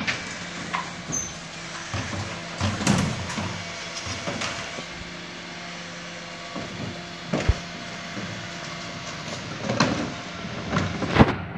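Rear-loading bin lorry running steadily, with a low hum, while wheelie bins are handled at its back: scattered clunks and bangs of plastic bins, the loudest about seven and a half seconds in and near the end.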